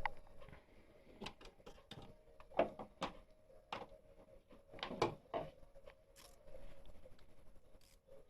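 Irregular metallic clicks and knocks of hand tools working on the engine's bolts and brackets, with a faint steady hum underneath.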